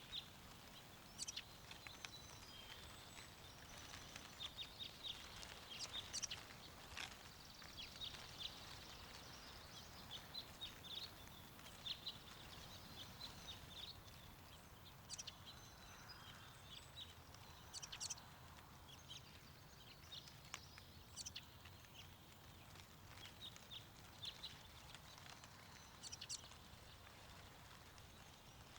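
Small songbirds chirping and twittering in quick, high notes throughout, over a faint steady low rush of wind.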